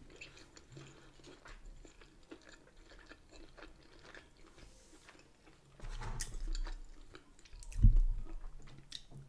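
Close-miked chewing of a bacon and egg bagel: soft wet mouth sounds, louder about six seconds in. Just before the end a metal fork knocks once against a wooden board as it spears bacon.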